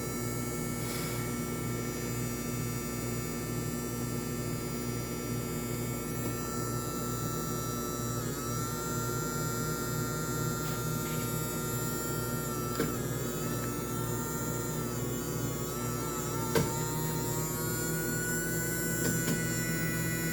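Mini washing machine's electric motor running with a steady hum, with a couple of light knocks about two-thirds of the way in and again near the end.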